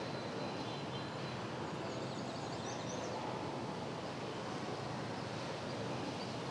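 Steady outdoor ambient noise, with a few faint high chirps about three seconds in.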